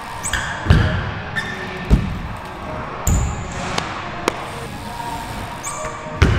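BMX bike wheels thudding down onto a skatepark ramp four times as the rider lands and hops in and out of manuals and wheelies, with a few short high squeaks from the bike between the landings.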